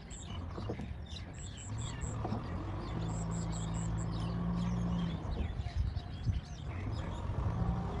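Small Kubota diesel tractor engine running steadily while plowing a flooded rice paddy, with many short bird chirps over it.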